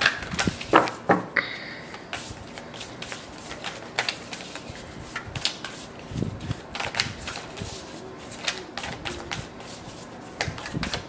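A deck of oracle cards being shuffled by hand: a steady run of quick, irregular card clicks, a few louder ones in the first second or so.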